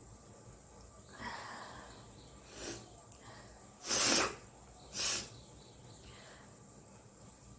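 A woman sneezing: a drawn-in breath about a second in, then a small sneeze and two louder sneezes about a second apart, the loudest about four seconds in.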